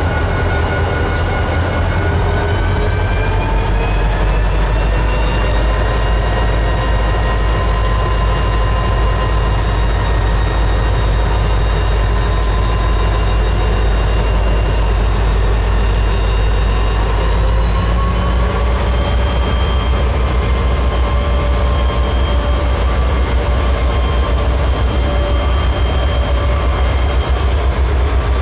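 EMD SD40-2 diesel-electric locomotives, each with a 16-cylinder turbocharged EMD 645 engine, passing close by at low speed with a deep, steady engine rumble. The engine note rises in pitch twice, a few seconds in and again past the middle, with a few sharp clicks along the way.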